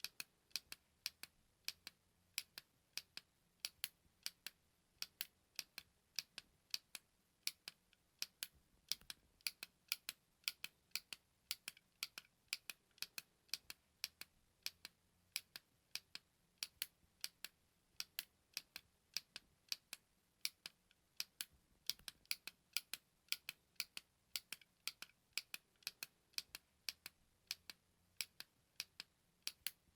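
A small push button clicked over and over: crisp, dry clicks, often in quick pairs, about two or three a second.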